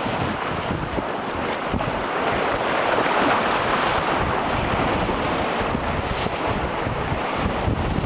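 Small Lake Michigan waves breaking and washing over a rocky, pebbly shore, with wind buffeting the microphone. The wash grows louder a few seconds in.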